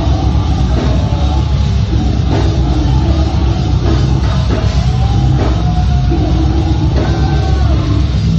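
Loud live death metal band playing: heavy guitars and a pounding drum kit through a club PA.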